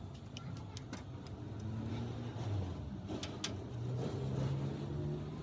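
An engine running with a low drone that rises slightly in pitch in the second half, with a couple of sharp metallic clicks about three seconds in.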